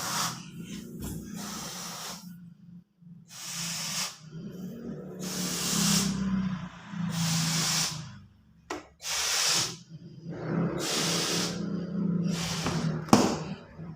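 A balloon being inflated: air rushing in repeated bursts of about a second each, with short pauses between them.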